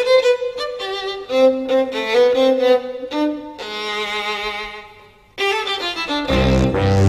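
Small chamber ensemble playing a lively tune: quick high notes over a held note, then a held chord that fades away about five seconds in. The ensemble comes back in fuller, with low notes added near the end.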